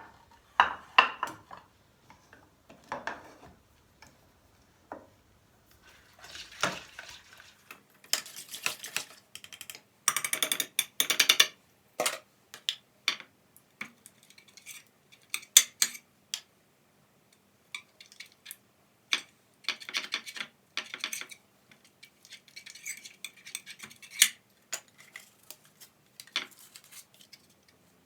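Kitchen utensils knocking, clinking and scraping against dishes and pans in irregular bursts, with a couple of longer stretches of scraping or stirring.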